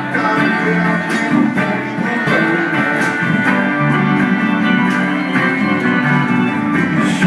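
Small live band playing an instrumental passage, with strummed and picked guitars to the fore.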